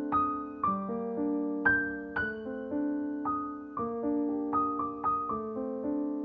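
Background piano music: a gentle melody of single notes and chords, a new one struck about every half second, each ringing and fading.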